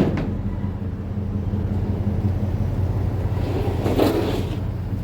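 Car driving in traffic, heard from inside the cabin: a steady low engine and road rumble, with a short knock at the very start and a brief rush of noise about four seconds in.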